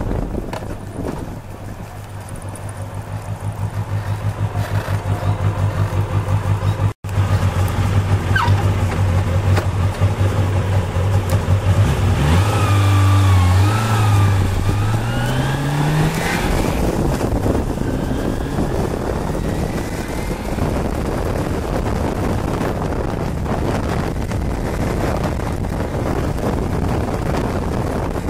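Kawasaki Balius 250 inline-four motorcycle engine on the move: a steady low drone with a pulsing beat, then rising in pitch as it revs up about twelve seconds in, followed by steady wind and road noise. The owner believes he hears a buzzing rattle in it, a croak like a frog or a duck, and cannot tell whether it comes from the engine or the handlebar area.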